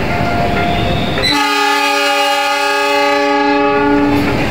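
Passenger carriages rumbling past on the rails, then a train horn sounds one long steady blast of about three seconds, starting about a second in.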